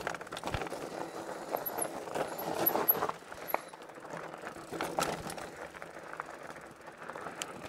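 Hiboy P6 fat-tire electric mountain bike riding over loose rocky ground: tyres crunching on stones, with many small clicks and rattles from the bike. It is louder for the first three seconds, then quieter.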